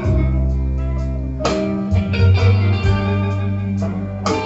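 Blues recording playing back from a cassette on an Akai GXC-570D deck: an instrumental guitar passage over a bass line, with plucked notes struck about a second and a half in and again near the end, between sung lines.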